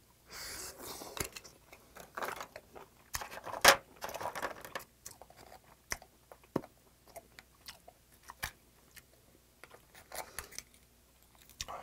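A person slurping steamed oysters from the shell and chewing them, with small clicks and scrapes of an oyster knife prying the shells open. There is one sharp knock a little under four seconds in.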